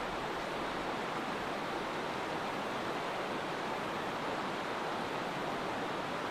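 Steady rushing of a shallow stream flowing over a stony bed.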